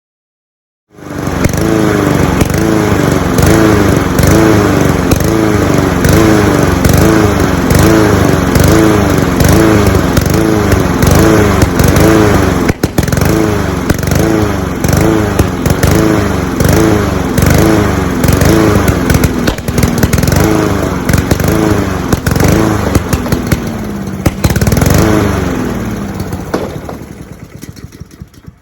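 Honda GCV190 engine of a Cub Cadet SC-700H walk-behind lawn mower running loud after a cold start, its pitch rising and falling regularly. Near the end it runs down and stops, with a few sharp pops as it dies.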